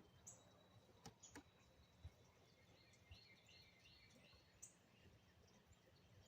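Near silence with faint birdsong: short high chirps, a quick series of them about three seconds in, and a few soft clicks between one and two seconds in.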